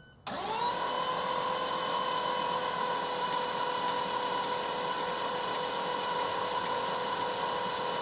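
Starter motor cranking an International DT466 diesel that does not fire: a steady high whine over a rushing noise, starting about a quarter second in with a short rise in pitch. The engine cranks but will not start, with marginal fuel delivery pressure.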